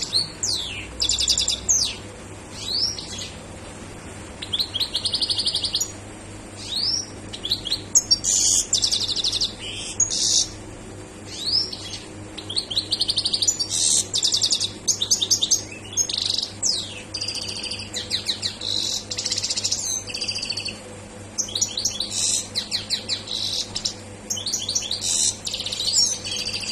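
A caged European goldfinch singing at full excitement, in bouts of rapid, high, twittering trills and buzzy notes broken by short pauses.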